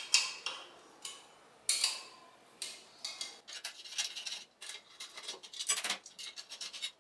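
Light metallic clicks and scrapes as a 5 mm Allen key works stainless-steel bolts out of a motorcycle's exhaust heat shield. There are a few separate clinks at first, then quicker, denser clicking over the last few seconds.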